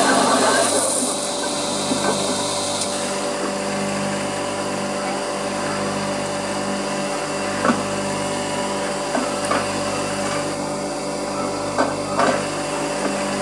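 Homemade centerless grinding machine running steadily while grinding a plastic workpiece: a constant motor hum with a grinding, rubbing noise and a few short clicks.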